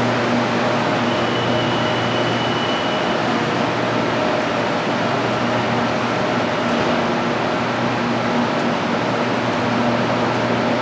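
Steady mechanical hum and rushing air noise of a BTS Skytrain train or station, with a constant low drone and a faint high tone from about one to three seconds in.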